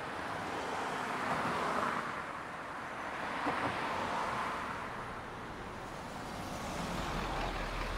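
Street traffic: cars passing one after another, the tyre and engine noise swelling and fading twice. A low engine rumble comes in near the end.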